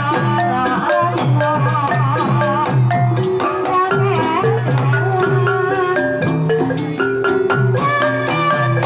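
Banyumasan gamelan music: a kendang hand drum and struck bronze pot gongs and metallophone-like mallet percussion keep a steady rhythm under a wavering, vibrato melody line, likely a sinden's singing voice.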